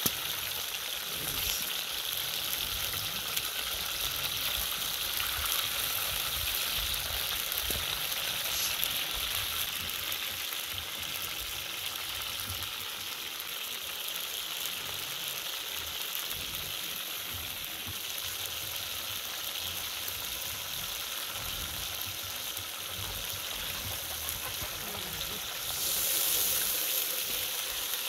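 Beef rump steaks frying in hot oil in a steel talandara pan: a steady sizzle that grows briefly louder near the end.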